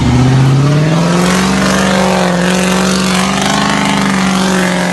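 Land Rover Discovery 2 engine revving up and holding at high revs while its 37-inch Maxxis tyres spin in deep red clay mud, spraying mud against the body: the truck is stuck and not moving forward.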